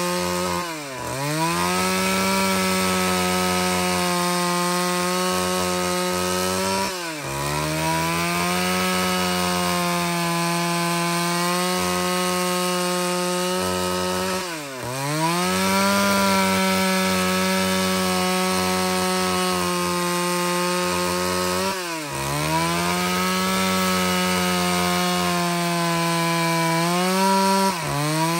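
Stihl MS 381 two-stroke chainsaw ripping angico preto hardwood into boards, running steadily under load. Its engine pitch dips sharply and recovers five times, about every seven seconds.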